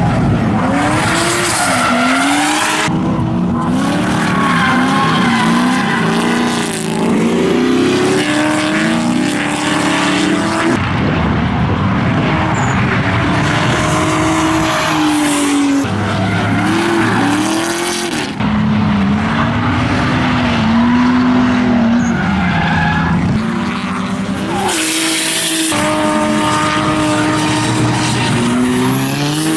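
Drift cars' engines revving hard, pitch rising and falling as they hold slides, over the hiss and squeal of spinning, skidding tyres. The sound changes abruptly several times as it moves from one car to another, and near the end an engine holds a steady high note.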